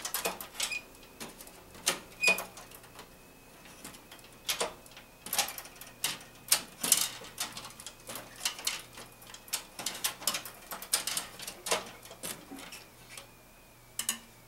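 Irregular clicks, taps and rubbing as flexible water-cooling tubing is pushed and bent through a computer case, knocking against the case's panels and fittings.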